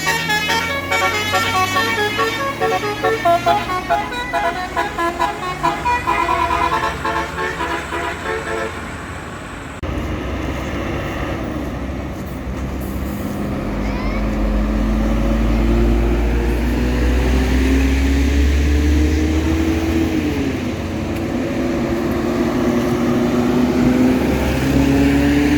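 A tour bus's basuri musical horn plays a fast, many-note melody for about ten seconds, then cuts off. The bus's engine then pulls away, its pitch climbing, dipping once at a gear change and climbing again.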